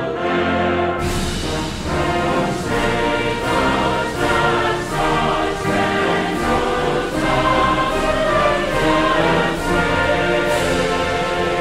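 Background choral music: a choir singing sustained chords.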